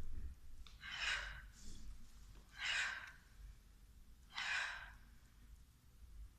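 A woman breathing out audibly three times, each a short rush of breath, a little under two seconds apart.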